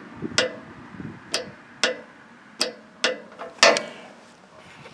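Click-type torque wrench set to 25 pounds clicking about six times as it is pulled on the sawmill's blade-tension bolt, each sharp click marking that the set torque has been reached.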